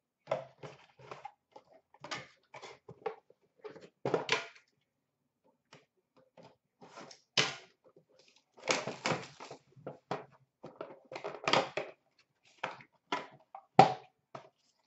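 Cardboard puck boxes being handled and opened: irregular rustling, scraping and tapping of the cardboard and its flaps, with boxes set down on a glass countertop. A sharp knock near the end is the loudest sound.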